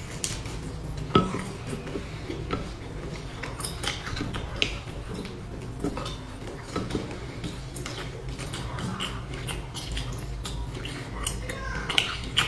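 Chopsticks clicking and scraping against a stainless-steel bowl, with close-up biting and chewing of a sugar-coated fried cake. The clicks come irregularly throughout, the sharpest about a second in.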